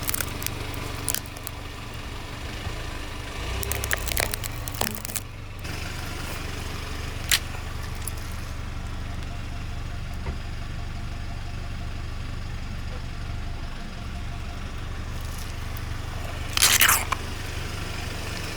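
A car's engine running low and steady while its tyres roll over and crush objects, with scattered cracks and crunches and a louder crackling crunch near the end.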